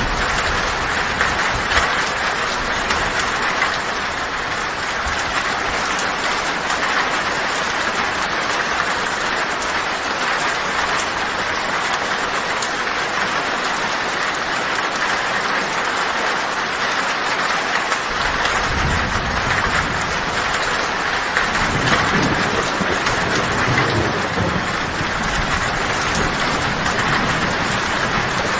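Heavy rain drumming steadily on a tin roof. A low thunder rumble rolls in about two-thirds of the way through and swells, then eases off toward the end.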